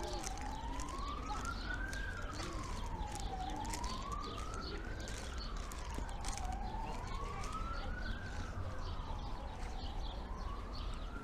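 Emergency vehicle siren in a slow wail, its pitch rising and falling about once every three seconds.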